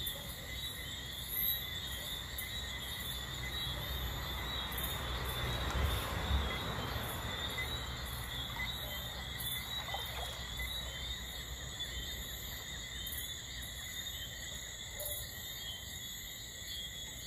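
Night insect chorus, crickets among them: a steady high-pitched chirring, with a low rumble underneath.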